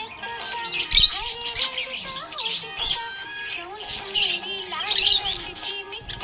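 Budgerigars chirping and warbling, a run of quick high chirps and squawks.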